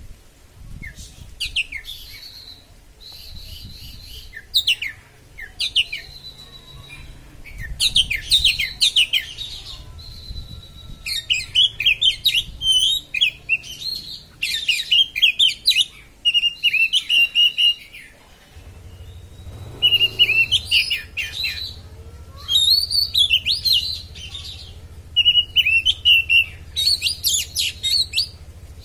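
Oriental magpie-robin (kacer) singing: repeated bursts of rapid, sharp, high whistled and chattering notes, in the fast stuttering 'konslet' style.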